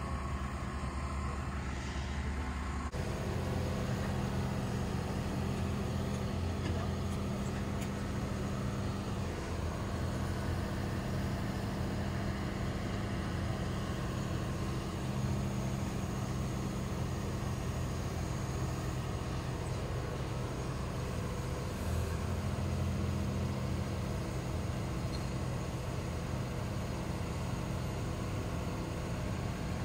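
Mobile crane's diesel engine running steadily, a low even drone while it holds a manufactured home section on its hook.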